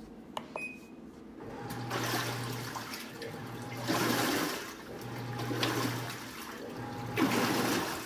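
RCA 2.0 portable washing machine starting its cycle: a click and a short beep from the control panel about half a second in, then water rushing and splashing in the tub in swells, with a low hum from the machine that comes and goes.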